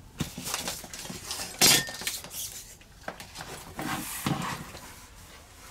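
Metal hand tools, steel carving chisels and a steel rule, clinking and knocking as they are handled on the bench: a few separate clinks, the loudest about a second and a half in.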